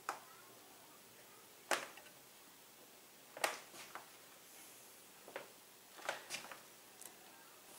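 Scattered light knocks and taps, about eight in all, as a wooden support piece is handled and pressed into place against the wooden pinball cabinet.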